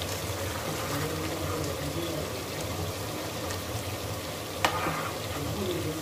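Gongura chicken liver curry simmering and bubbling in a metal kadai while a metal spoon stirs it, with one sharp clink of the spoon against the pan about four and a half seconds in.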